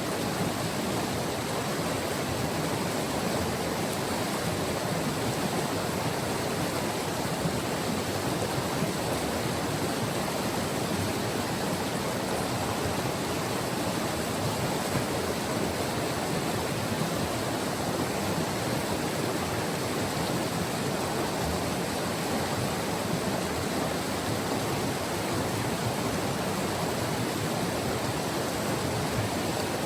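White River, a glacial mountain river, rushing steadily over its rocky bed: a dense, even water noise with no breaks.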